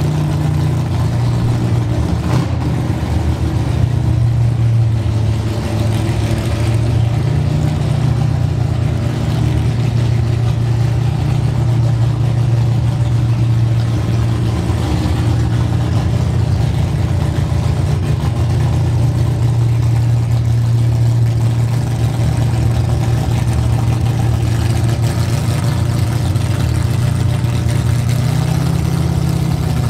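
Chevy II Nova gasser drag car's engine running loud and steady at low revs as the car drives slowly, with a short rise in revs near the start and again near the end.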